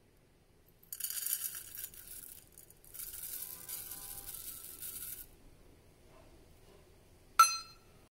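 Dry rolled oats pouring from a stainless steel measuring cup into a pot, a rattling hiss in two runs with a short break between. Near the end, a single sharp metallic clink that rings briefly, the loudest sound.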